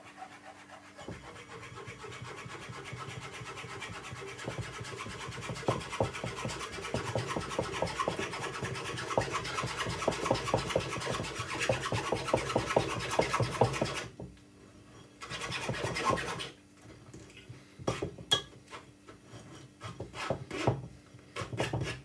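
Metal spoon scraping and pressing mashed banana pulp against a stainless-steel mesh sieve: a continuous scrape full of small ticks that stops about two-thirds of the way through, returns briefly, then gives way to a few scattered taps and scrapes.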